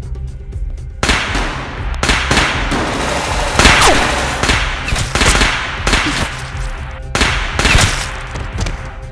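Rapid rifle gunfire in an exchange of fire, starting about a second in and running in quick bursts for several seconds, with a short break near the end before one more burst, over background music.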